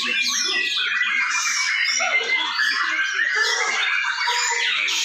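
Several caged white-rumped shamas singing at once in competition: a dense, unbroken tangle of overlapping whistles, chirps and quick rising and falling phrases.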